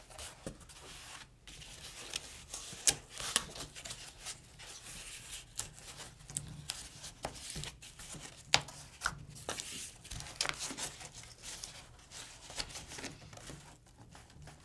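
Corrugated cardboard being folded along its score lines and pressed flat against a tabletop: uneven rustling and scraping with sharp clicks here and there, the loudest about three seconds in and again about eight and a half seconds in.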